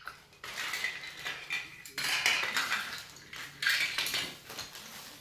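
Small hard plastic toy parts clicking and clattering against each other and the table, mixed with the crinkle of thin plastic packaging bags, in irregular bursts as the pieces are unpacked and handled.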